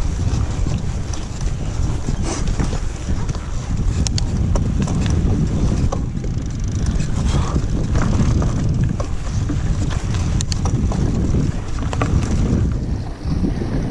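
Wind buffeting the microphone of a mountain bike on the move, over the tyres running on a sandy forest trail. Scattered sharp clicks and knocks come from the bike rattling over bumps.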